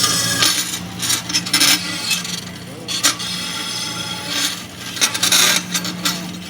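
Grob vertical band saw running with a steady motor hum while its blade cuts steel in irregular rasping bursts, with a few sharp clicks.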